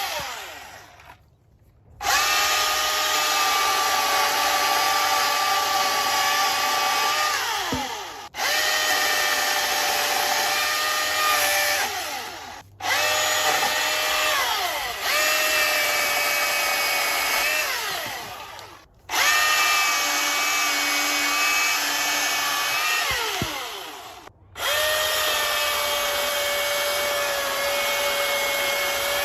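Milwaukee M18 FUEL 16-inch cordless chainsaw's brushless motor and chain running at a steady high whine in repeated bursts while cutting up a branch, about five times. Each run ends with the whine falling in pitch as the chain spins down, then starts again a moment later.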